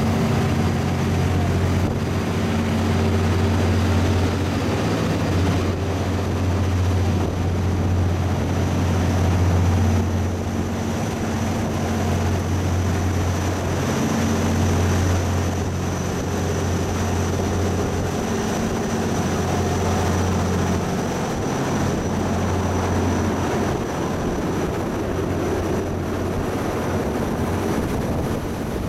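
Fast crew boat's diesel engines and waterjets running at speed, a steady low drone with a hum of overtones, over the rush of the churning waterjet wake.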